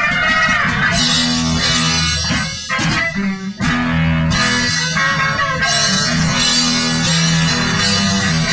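Rock music with guitar, loud and continuous, dipping briefly about three seconds in.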